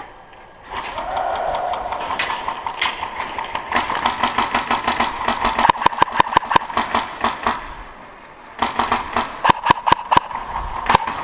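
Airsoft electric gun (AEG) firing in two long full-auto bursts, a fast even clatter of clicks over the gearbox motor's whine. The first burst runs about four seconds; the second starts shortly after and lasts a couple of seconds.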